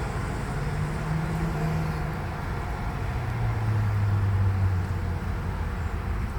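Tram running along the street, its motors giving a low hum that drops in pitch partway through, over a steady rumble of wheels and street noise.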